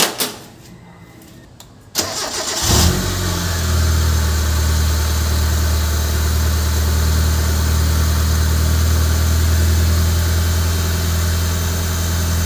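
Mitsubishi Lancer GSR's four-cylinder petrol engine cranked by the starter and catching within a second, a one-click cold start. It then settles into a steady fast idle, the raised idle of a cold engine.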